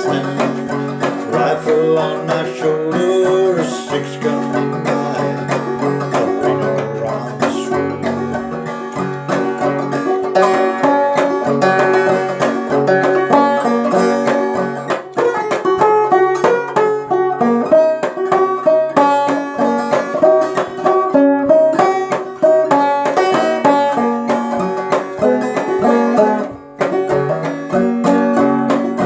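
Clawhammer banjo playing an instrumental break: a steady run of quick picked notes and brushed strums.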